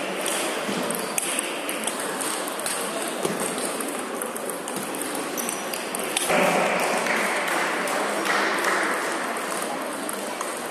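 Table tennis rally: the celluloid-type ball clicking sharply off the rubber-faced paddles and the table top in quick succession.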